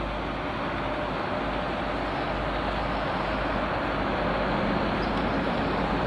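Heavy diesel engines of the cranes and trucks running steadily on a construction site, the noise growing slowly louder.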